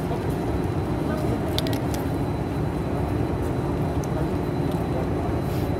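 Steady low background rumble in a large hall, with a quick run of sharp clicks about one and a half seconds in.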